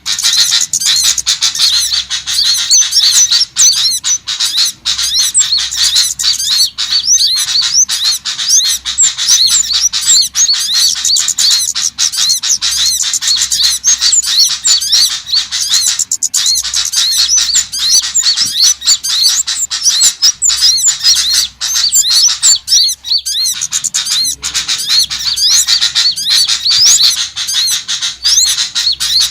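Dense, continuous high-pitched chirping and twittering of small songbirds, many rapid calls overlapping without a break: a bird-lure recording made to draw small birds in.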